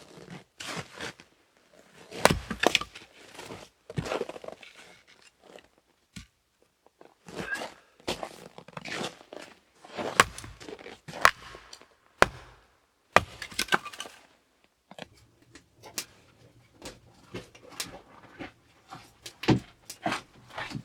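Irregular knocks, clicks and clatter in clusters, with short quiet gaps between.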